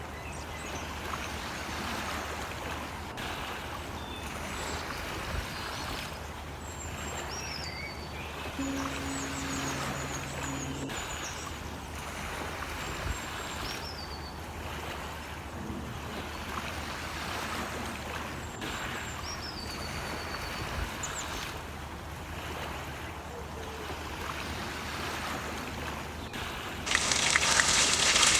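Steady background noise with a constant low hum and a few short, high chirping glides. About a second before the end, loud sizzling and crackling starts suddenly, as of food going into hot oil.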